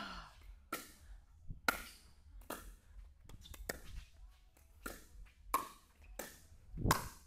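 Pickleball paddles striking a hard plastic ball in a quick rally: a string of sharp pops, roughly one a second, the loudest near the end.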